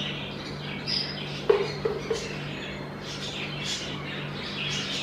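A steel spoon clinks once against the pot about one and a half seconds in while dolloping ghee onto the rice, over a steady low hum and faint high chirps.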